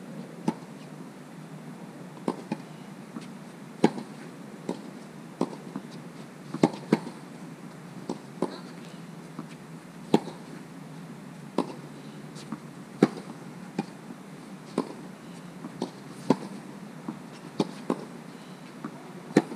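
Tennis ball hit back and forth in a rally: sharp pops of racquet strikes and the ball bouncing on the court, roughly one every half second to second and a half, over a steady low hum.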